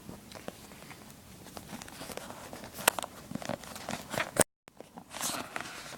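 Product packaging being handled and opened by hand: scattered clicks, taps and rustles that get busier as it goes, with a brief dead cut in the sound about three-quarters of the way through.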